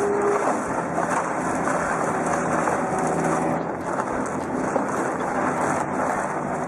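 Heavy forestry machinery running steadily under power, a dense mechanical din with engine tones underneath.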